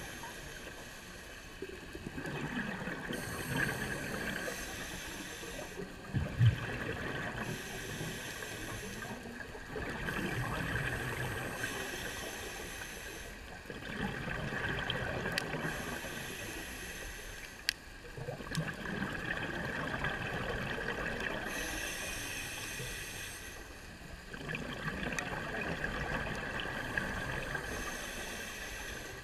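Scuba breathing through a regulator underwater: a hiss on each inhale alternating with gurgling exhaust bubbles, in a slow cycle every several seconds. A single sharp knock about six seconds in.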